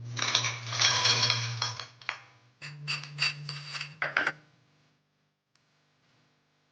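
Kitchen utensils scraping and rattling against a dish: about two seconds of continuous scraping, then a quick run of sharp clatters that stops a little over four seconds in, over a steady low hum.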